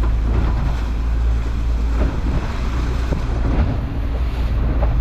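Small boat running through choppy water: strong wind buffets the microphone over the engine, with the hull knocking into the chop now and then.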